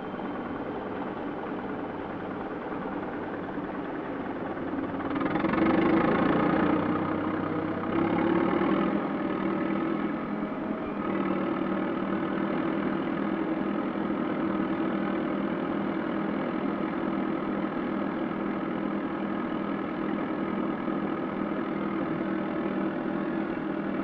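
Diesel engines of crawler bulldozers with Rome plow blades running steadily, swelling louder about five seconds in for two seconds and again briefly about eight seconds in.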